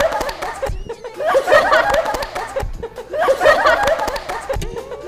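A group of young women laughing hard together, in loud waves about every two seconds.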